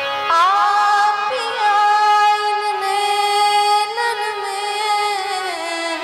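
Bhajan music from a live stage show: a held melody line that slides up into its notes and bends between them, over a string-like accompaniment.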